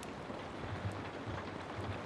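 Heavy rain falling steadily, mixed with the scattered sharp crackles of a wood fire.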